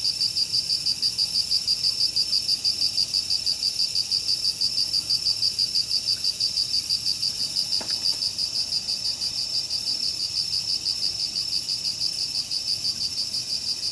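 Insect chirping steadily in a high, fast, even pulse of about five chirps a second, cricket-like. One faint tap about eight seconds in.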